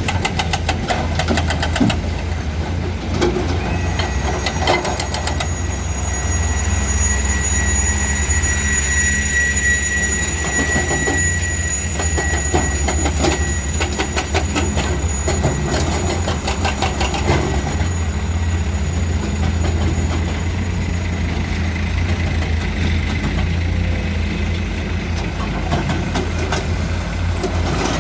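Komatsu excavator's diesel engine running under load with a steady low drone, while repeated clanks and rattles come from material being loaded into a dump truck. A steady high whine joins the sound a few seconds in and stops a few seconds before the end.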